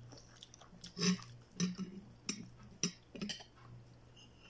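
Small clicks and taps of a meal eaten by hand, fish bones picked apart over a plate with utensils and dishes knocking lightly, about eight short sounds spread over a few seconds above a steady low hum.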